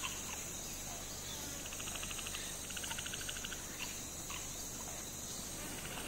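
Insects chirring in the wild: a steady high-pitched drone, with a few short runs of rapid pulsing trills.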